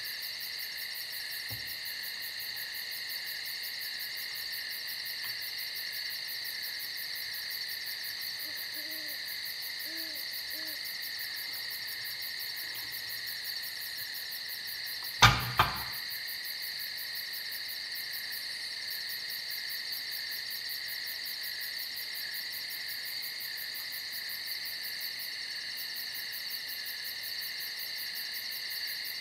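A steady, high-pitched insect chorus, with a few faint low hoots about nine to ten seconds in. About halfway through comes a sharp double clack, the loudest sound.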